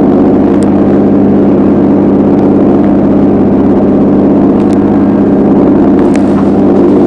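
Boat engine running at a steady pace, an even, loud drone with no change in speed. Three faint ticks come through over it.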